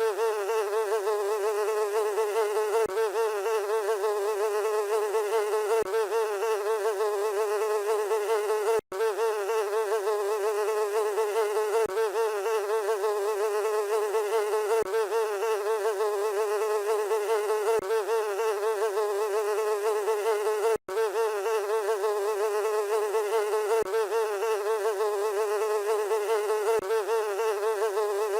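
Housefly buzzing in one steady, slightly warbling drone. Faint clicks come about every three seconds, and the sound drops out briefly twice, about nine and twenty-one seconds in.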